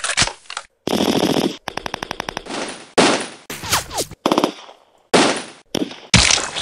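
Dubbed battle sound effects: short spliced bursts of gunfire, including a rapid machine-gun rattle, with a few falling whines. Each clip starts and cuts off abruptly.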